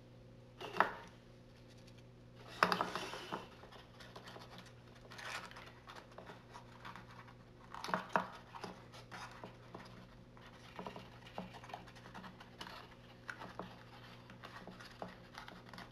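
Hands handling and pressing cardstock: scattered paper rustles, scrapes and light taps, with louder ones about a second in, around three seconds and around eight seconds, over a steady low hum.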